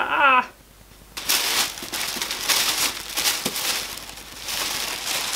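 Tissue paper wrapped around a book being unwrapped, crinkling and rustling in uneven waves from about a second in. A brief vocal sound comes just before, at the very start.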